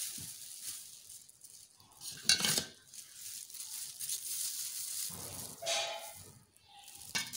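A few knocks and clinks of kitchen dishes and utensils being handled, the loudest about two and a half seconds in, over a steady hiss.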